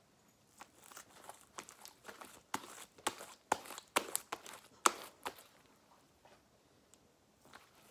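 Butter slime (slime mixed with soft clay) being squeezed and kneaded by hand, giving a run of sharp sticky clicks and pops that stops about five seconds in.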